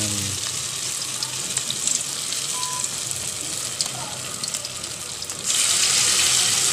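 Hot cooking oil sizzling as spoonfuls of banana-heart (banana blossom) patty batter fry in an aluminium pot. The sizzle gets louder about five and a half seconds in, as another spoonful goes into the oil.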